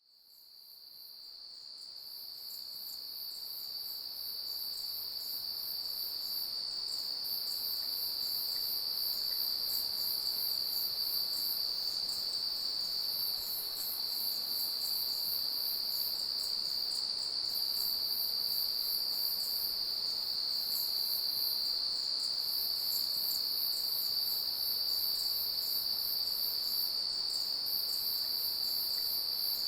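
A chorus of insects: one continuous high trill, with a higher, fast-pulsing chirp above it that stops and starts every few seconds. It fades in over the first several seconds, then holds steady.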